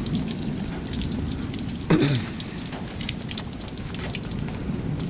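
Rain falling and dripping onto surfaces, a steady patter with many small drip ticks. A few short high chirps sound through it, and a brief falling squeak comes about two seconds in.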